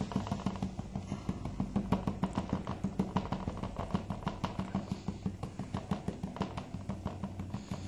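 Gold pan being shaken and tapped by hand in a quick, even rhythm of short clicks, with a steady low hum underneath, as the concentrates are worked down to black sand.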